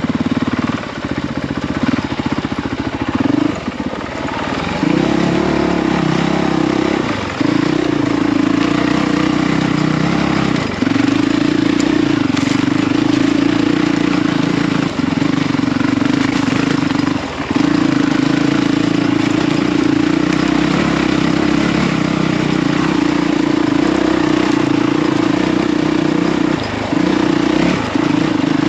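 Honda CRF450RL's single-cylinder four-stroke engine running under way on a trail ride. The steady engine note breaks off briefly about seven times and picks straight back up.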